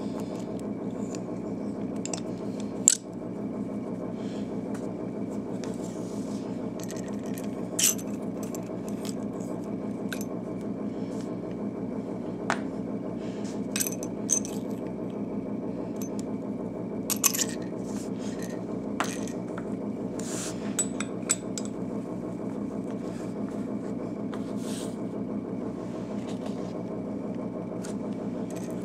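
Parts of a metal pocket pipe clicking, clinking and scraping as they are handled, taken apart and fitted together, in scattered knocks with the sharpest about three seconds in. A steady low hum runs underneath.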